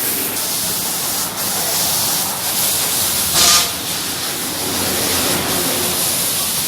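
High-pressure water jet from a pressure washer spraying onto a truck: a steady hiss, with a brief louder surge about three and a half seconds in.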